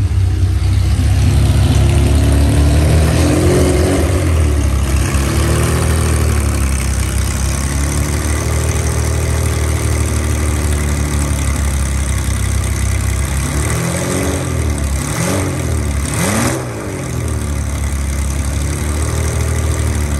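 Ferrari 365 GT4 BB's flat-twelve engine idling, its revs rising and falling gently a few times. There is a sharper pair of quick blips about three-quarters of the way through.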